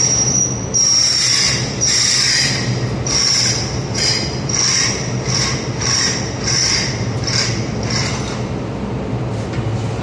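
Repeated squealing metal-on-metal scraping strokes, about one a second and then quicker and fainter, dying out near the end, over a steady low hum.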